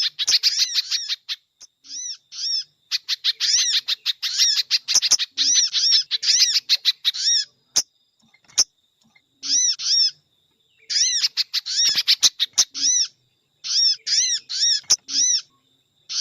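Bird-lure recording of sogon calls combined with pejantung calls: fast trains of high, arched chirps in bursts of a second or two, broken by short pauses, with a few sharp clicks.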